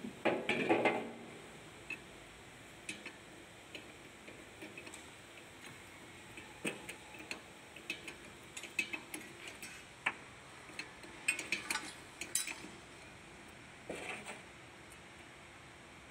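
Irregular metallic clinks and taps of hand tools and metal parts being handled during repair work, in short scattered clusters, with the busiest clusters at the start and about three quarters of the way through.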